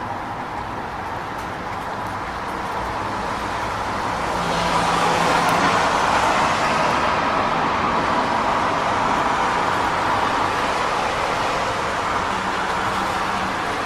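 Rain falling in a city street with traffic noise, an even hiss throughout. About four to five seconds in it swells as a vehicle goes by on the wet road.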